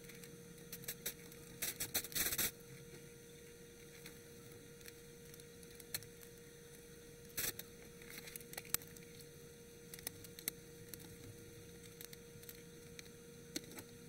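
Light scattered clicks and taps of a screwdriver and screws being worked into a TEAC X-1000R reel-to-reel deck's metal front panel, with a cluster about two seconds in and another about halfway, over a faint steady hum.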